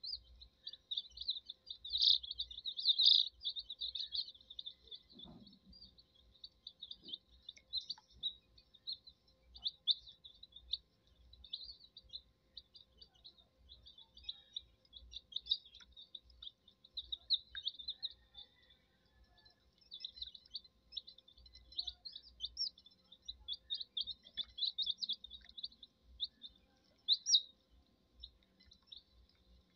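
A brood of domestic chicken chicks peeping continuously, many short high chirps overlapping, loudest about two to three seconds in.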